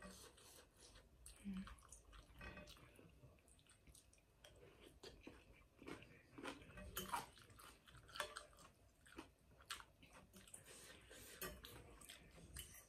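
A person chewing a mouthful of soft rice noodles, with irregular wet mouth smacks and small clicks.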